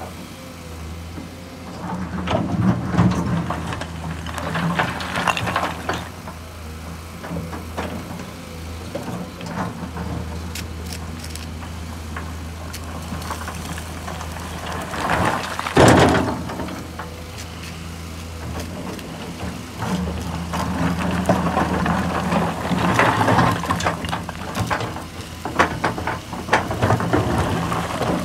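Diesel engine running steadily under the scraping and clatter of a Komatsu crawler excavator's bucket digging through frozen, rocky ground, with one loud crash about sixteen seconds in.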